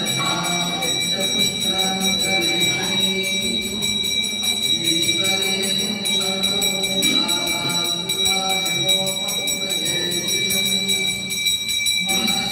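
Temple bell rung continuously during the pooja, its ringing steady throughout, with a group of voices chanting over it.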